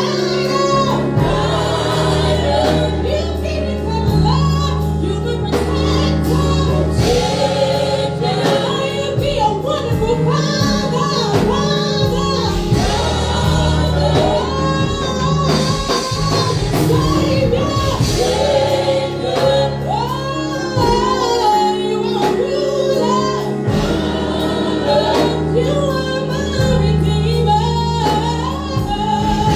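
Gospel worship music: voices singing a wavering melody over a band with sustained bass notes and a steady drum beat.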